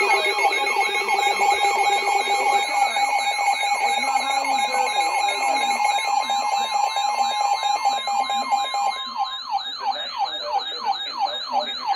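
Several NOAA weather radios sounding their alert alarms at once for an incoming warning: a steady alert tone, layered with fast warbling tones that sweep up and down several times a second. The steady tone stops about nine and a half seconds in, leaving the warble.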